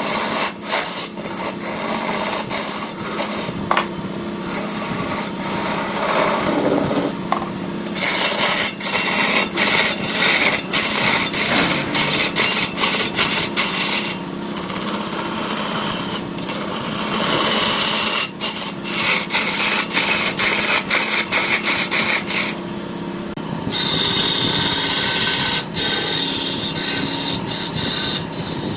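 Turning tool cutting into spinning wood on a large wood lathe: a harsh scraping that comes and goes in short strokes, over a steady motor hum.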